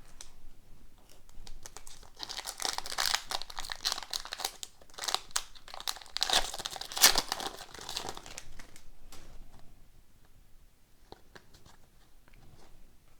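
Foil hockey-card pack wrapper crinkling and tearing, a dense run of crackling that is busiest in the middle, then thinning to a few light clicks of cards being handled.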